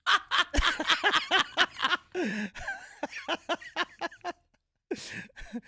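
A woman laughing hard in quick, rhythmic bursts, breaking off briefly near the end before a few more bursts.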